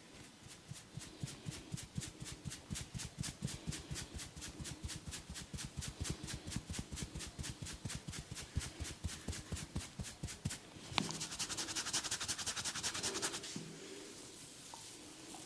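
A barber's hands striking in rapid, even percussive massage strokes, about five a second, for some ten seconds. Then comes a single sharp snap and a couple of seconds of rough, hissy rubbing of hands against hair or skin.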